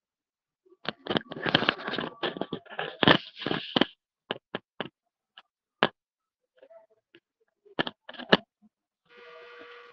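A burst of rapid crackling and sharp clicks lasting about three seconds, then a handful of single clicks spaced out, and near the end a faint hum carrying two steady tones.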